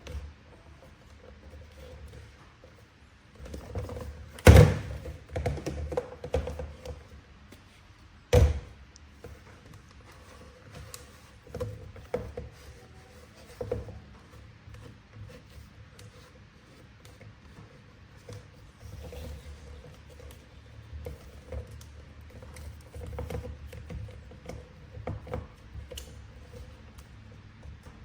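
Handling noises from unboxing a toy figure: scattered taps, clicks and thunks of packaging and plastic being handled, with two loud knocks about four and eight seconds in.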